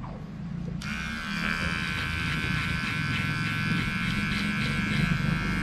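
Cheap electric dog-grooming clipper comes on about a second in and buzzes steadily as it trims a beard.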